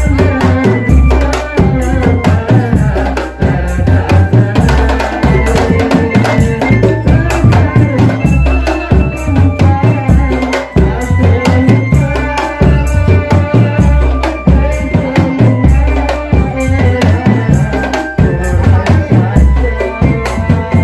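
Drum band playing loud music: a steady bass-drum beat with rattling percussion and a melody held over it.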